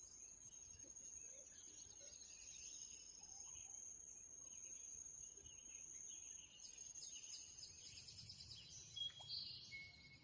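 Faint outdoor ambience: a steady high-pitched insect drone with bird chirps, including a quick run of chirps about two-thirds of the way in.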